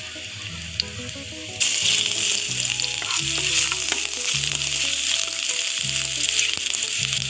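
Chopped ginger and garlic dropped into hot coconut oil about a second and a half in, setting off a loud, steady sizzle over the quieter frying of mustard seeds and chillies, with a few clicks as a wooden spatula stirs the pan.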